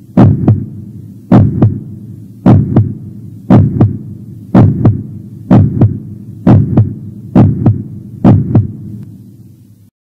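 Heartbeat sound effect: paired lub-dub thumps about once a second over a low hum, quickening slightly, then cutting off abruptly near the end.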